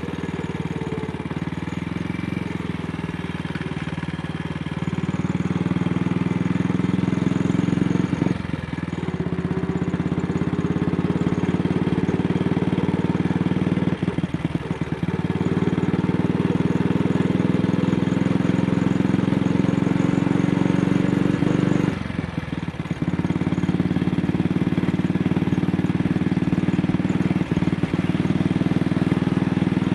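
AJS Model 8 single-cylinder motorcycle engine running while riding, its pitch rising steadily as it pulls, with brief drops about 8, 14 and 22 seconds in as the throttle closes and it changes up. The engine has developed a misfire at very slight throttle openings.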